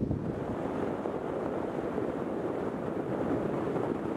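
Steady desert wind rushing over the microphone. It comes in suddenly at the start and holds an even level throughout.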